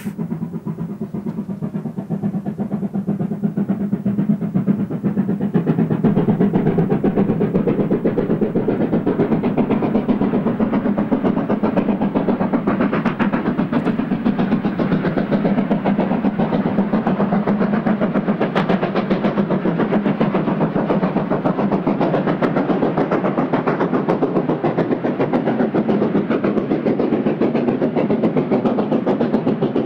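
South African Railways Class 15F steam locomotive working hard with a passenger train, its exhaust beats coming fast and even. It grows louder over the first few seconds as it approaches and then holds steady as it goes by.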